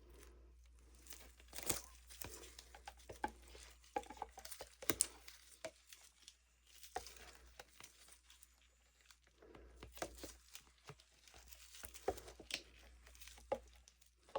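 Plastic cups and craft supplies being handled at a work table: irregular light taps, clicks and crinkles.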